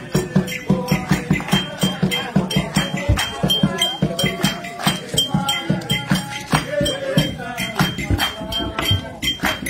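Music with busy, fast percussion and a melody line over it.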